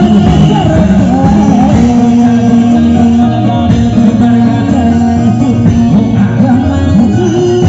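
Loud music for a reog street performance, with a melody carried by sustained pitched instruments and a singing voice over a steady low beat.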